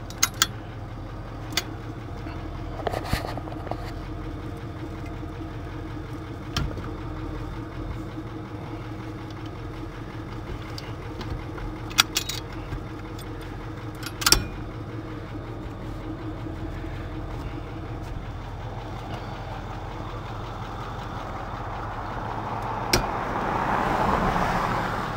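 Tow truck engine idling steadily, with a few sharp metal clanks from the towing gear. Near the end a rushing sound swells and fades, like a vehicle going past.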